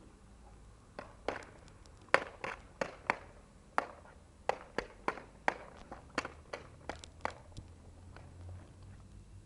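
A series of sharp, irregular taps or knocks, about two a second, starting about a second in and stopping a couple of seconds before the end.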